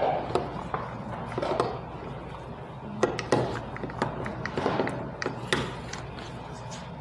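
A rolling pin with adjustable spacer rings is pushed back and forth over dough sandwiched between acetate sheets, in several strokes. The plastic sheets rustle and crackle, and the pin and its rings click and knock against the countertop.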